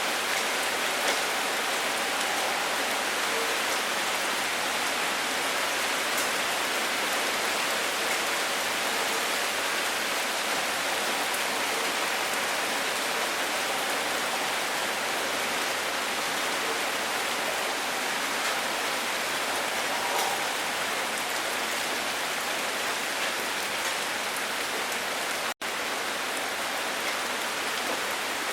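Steady rain falling: a dense, even hiss with scattered drop taps, which cuts out for an instant near the end.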